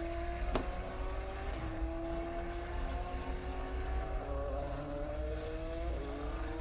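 Race car engine on a Le Mans test lap, its pitch climbing steadily and dropping back at each upshift, about three times. A single sharp click sounds about half a second in.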